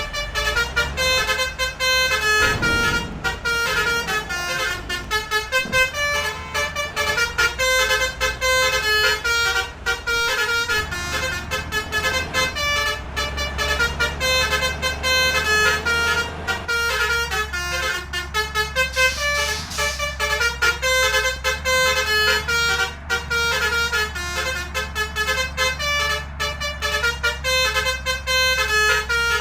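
A bus's 'telolet' multi-tone musical horn playing a continuous melody of short, quickly changing notes over the steady low drone of the bus engine.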